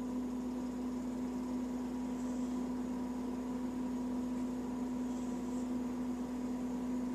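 A steady low hum, with a sleeping cat's soft snoring breaths heard twice as faint hisses about three seconds apart.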